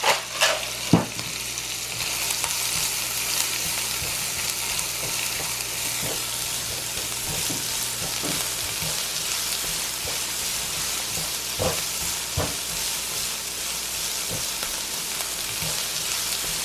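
Diced white onion sizzling in hot bacon fat in a frying pan: a steady frying hiss. A few short knocks, about a second in and twice near 12 s, as the onions are stirred.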